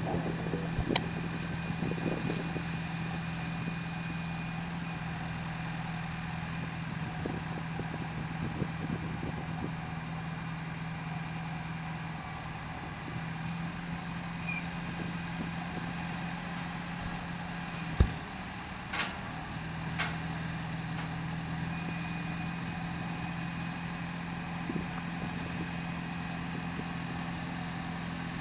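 Heavy diesel engines of a mobile crane and a truck running steadily at one constant pitch. About two-thirds of the way through there is a sharp knock, followed by two fainter knocks over the next two seconds.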